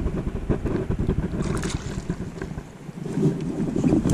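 Wind buffeting the microphone, a choppy rumble, over river water lapping and splashing close by.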